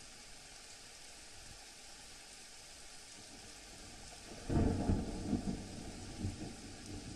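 Rushing floodwater spilling over overflowing dams: a steady hiss that gives way to a louder, low, surging rumble about four and a half seconds in.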